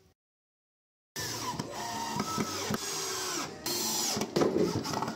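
After about a second of dead silence, a cordless drill-driver drives a screw through a timber brace into a wooden bed leg, its motor running steadily under load. It pauses briefly and runs on again.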